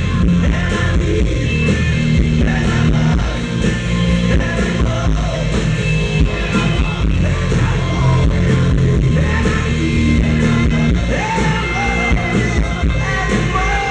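Live rock band playing loudly, with a lead singer over electric guitars, bass and drums.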